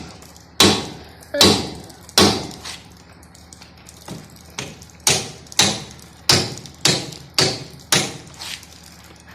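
Hammer blows: about ten sharp strikes, three spaced under a second apart, then after a pause a quicker run of six or so.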